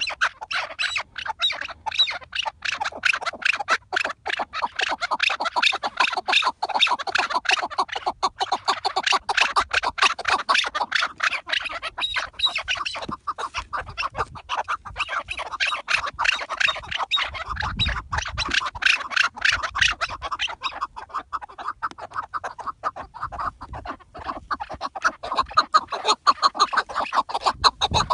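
Chukar partridges calling: a continuous run of rapid, repeated chucking notes, several a second, with no break.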